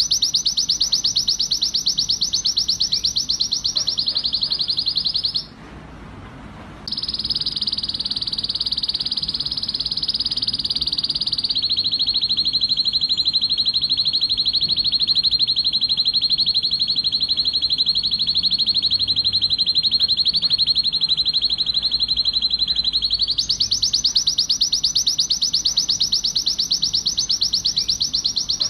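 Male canary singing an excited song made of long, rapid trills, each held for several seconds before the bird switches to another. The song breaks off briefly about five seconds in, then runs on.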